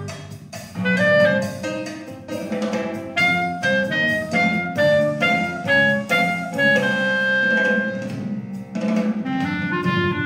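B-flat-type soprano clarinet playing a Christmas tune, a melody of separate notes that runs into longer held notes in the second half, over a lower accompaniment.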